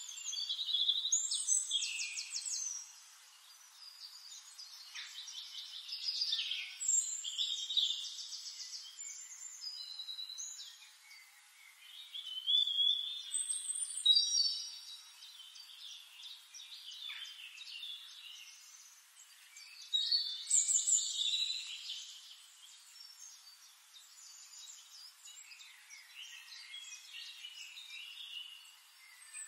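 Songbirds singing in bursts of chirps and rapid trills, several phrases overlapping at times, with quieter stretches between the bursts.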